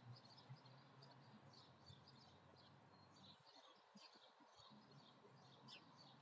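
Faint birdsong: small birds calling in many quick, short chirps, over a low steady background hum.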